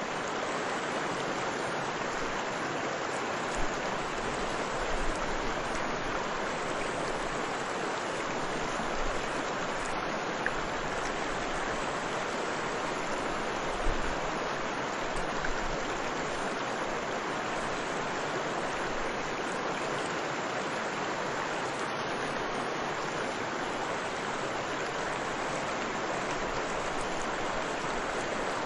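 Steady rush of flowing water, even and continuous, with a few brief low bumps in the first half.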